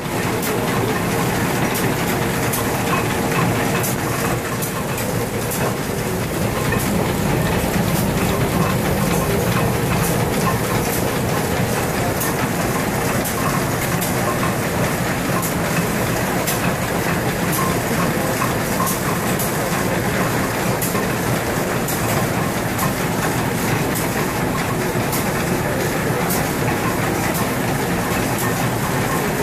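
Several antique stationary gas engines running together, a steady mechanical din broken by many sharp, irregular clicks and knocks.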